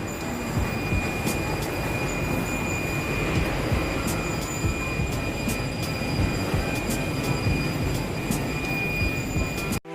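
Steady mechanical rumbling noise with a high, steady squeal held over it and a few sharp clicks; it cuts off suddenly just before the end.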